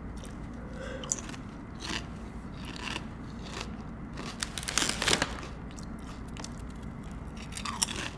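Kettle-cooked potato chips being bitten and crunched, with the crinkle of the foil chip bag as a hand reaches in. The crunches come in separate bites every second or so, with a louder run of crunching about five seconds in.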